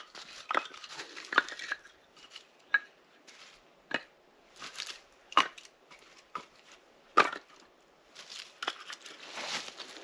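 Short pieces of dry firewood clacking against one another as they are picked up off the ground and stacked into an armload, in sharp, irregular knocks, with rustling in dry leaves and brush near the end.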